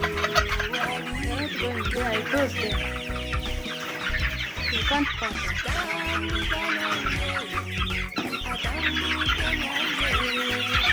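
A flock of chickens clucking and squawking all at once in a dense, continuous chorus, the birds frightened and running about as they are chased. Background music with held tones plays underneath.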